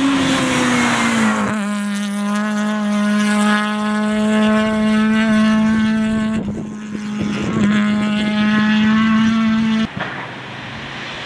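Renault Mégane rally car engine at high revs. Its pitch drops as the car passes, then holds steady as it pulls away, with a brief break for a gear change about six and a half seconds in. The engine sound cuts off abruptly near the end.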